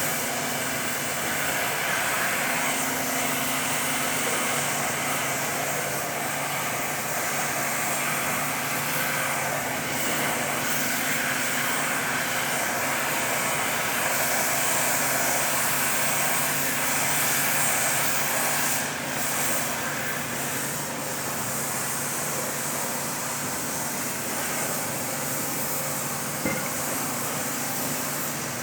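Steady hissing machine noise with a low hum underneath, holding even with no breaks.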